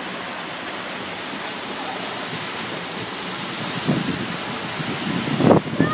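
Heavy rain falling steadily on an open-air pool and its wet tiled deck: an even hiss of rain. A few louder low thumps come about four seconds in and again near the end.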